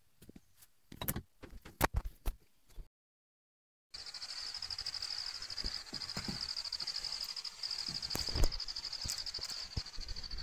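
A few sharp knocks and clatters, then, after a short dropout, a steady high insect chorus pulsing rapidly, with a single thump past the middle.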